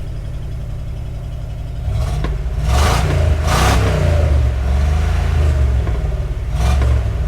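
1977 Buick Electra's V8 running through a newly fitted muffler, idling and then revved up about two seconds in and again near the end. The engine is run while the cooling system is burped after a water pump replacement.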